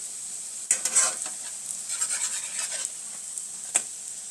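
Egg-dipped bread slices sizzling in oil in a frying pan. From about a second in, a spatula scrapes and knocks against the pan for a couple of seconds, with one sharp click near the end.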